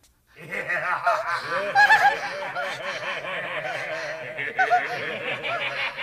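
Cartoon character laughing: a long run of chuckling that starts about half a second in.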